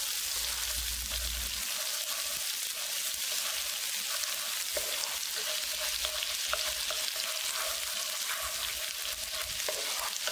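Ginger-garlic paste frying in hot oil in a pan, stirred with a wooden spatula: a steady sizzling hiss with many small pops.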